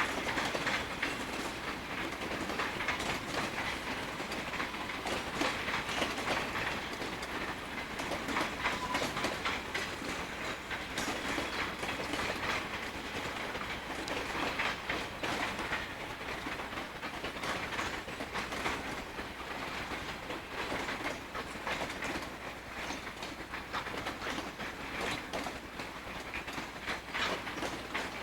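Southern Pacific freight train cars rolling past at close range, a steady rumble with many sharp clicks as the wheels pass over the rail joints.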